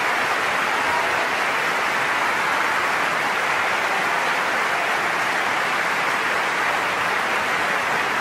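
Large theatre audience applauding steadily at the end of the opera.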